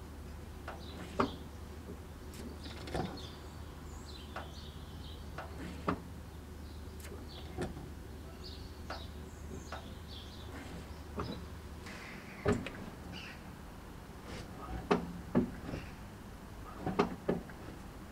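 Irregular light knocks and clicks, a few louder ones clustered near the end, over a low steady hum that stops about two-thirds of the way through.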